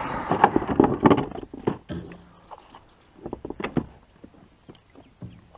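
Irregular knocks and rattles of fishing gear against a plastic sit-on-top kayak as a rod is set into its holder and a landing net is handled. They are busiest in the first second and a half, with another short cluster in the middle and a few single ticks near the end.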